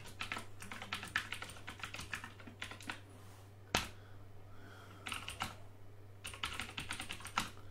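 Typing on a computer keyboard: runs of quick keystrokes, a single sharper key press a little under four seconds in, then more short runs of typing from about five seconds on, over a low steady hum.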